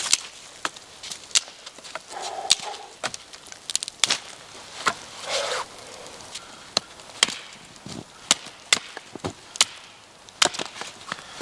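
Firewood being worked by hand: a string of irregular, sharp wooden cracks and knocks.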